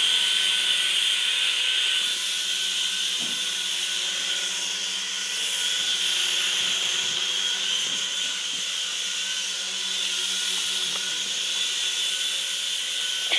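Syma S026G Chinook toy RC helicopter in flight, its small electric motors and twin rotors making a steady whirring whine.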